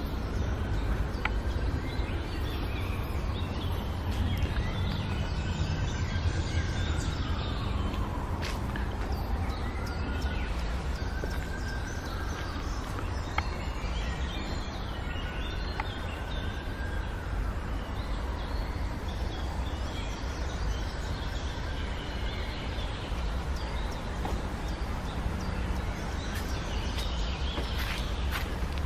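Outdoor ambience: birds chirping over a steady low rumble. A faint tone rises and falls again and again, every few seconds.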